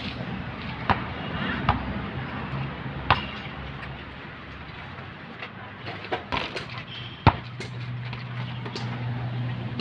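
Basketball bouncing on a concrete court: a few sharp, irregularly spaced bounces, the loudest about seven seconds in.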